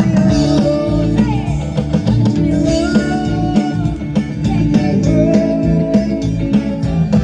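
Live band playing a rock song at sound check, with a singer, guitar and bass guitar over a steady beat.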